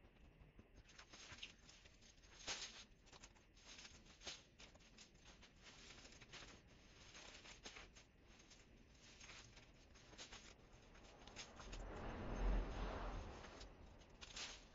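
Faint rustling and crackling of cut hedge branches and leaves being gathered and handled, with a louder swell of rustling about twelve seconds in as a large leafy branch is pulled from the pile.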